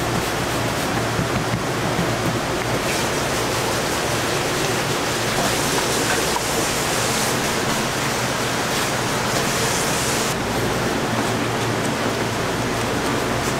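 Steady rushing kitchen background noise with a low hum, turning hissier for a few seconds in the middle.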